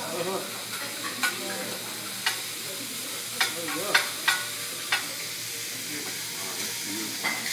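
Steak, scallops and vegetables sizzling on a hot hibachi griddle, with a steady hiss. Metal utensils click sharply against the steel about seven times in the first five seconds as the chef works the food.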